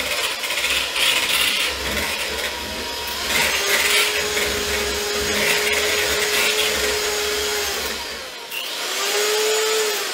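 Electric hand mixer running, its beaters whipping coconut cream in a bowl. The motor's pitch shifts upward about eight and a half seconds in.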